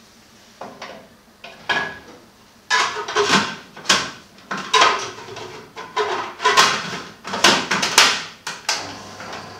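Plastic parts of a food processor being fitted together: a dozen or so sharp clacks and knocks as the clear bowl and grater attachment are set on the base and locked in place, coming thicker from about three seconds in.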